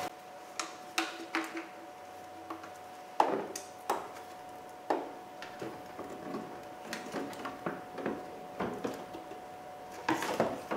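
A plastic headlight assembly and its wiring harness being handled and worked into the car's front-end opening: scattered clicks and knocks of plastic, the loudest about three seconds in, over a faint steady hum.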